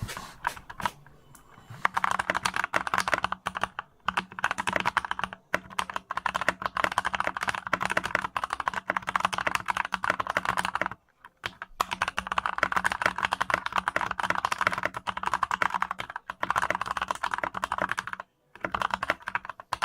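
Keychron K10 full-size mechanical keyboard with brown switches being typed on quickly: a fast, dense clatter of key clicks. It starts about two seconds in, with brief pauses near the middle and near the end.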